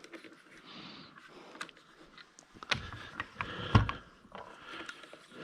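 Scattered metallic clicks and knocks as a milling setup is handled and adjusted by hand, busier in the second half, with one louder knock near the end.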